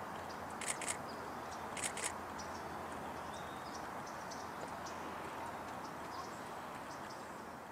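Outdoor ambience: steady background noise with faint, high bird chirps scattered through it, and two pairs of sharp clicks about one and two seconds in.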